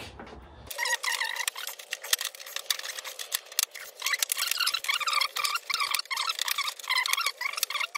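Sped-up workshop audio: a squeaky, chipmunk-like voice with quick clicks and taps as plastic fairing trim is prised off a scooter with a trim tool.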